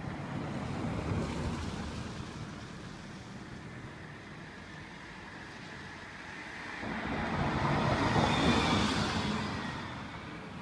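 Road vehicles passing by: a smaller pass peaking about a second in, then a louder one swelling up and fading away near the end with a faint falling whine.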